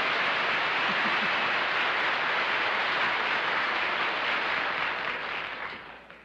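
Studio audience applauding, a steady wash of clapping that fades away near the end.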